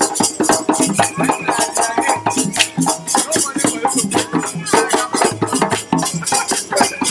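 West African hand drumming on djembes and other drums: a fast, dense, continuous rhythm of many overlapping hand strokes.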